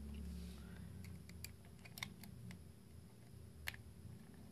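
Light scattered clicks and ticks of a small eyeglass screwdriver working the screws of a Pentax DA 18-55mm WR lens's metal rear mount, the sharpest two about two seconds in and near the end, over a low steady hum.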